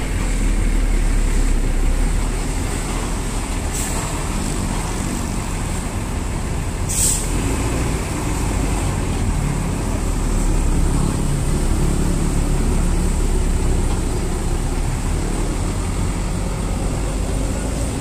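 Coach bus (Laksana SR2 HD Prime body) with its diesel engine running as it pulls away: a deep, steady rumble. Two short air-brake hisses come about four and seven seconds in.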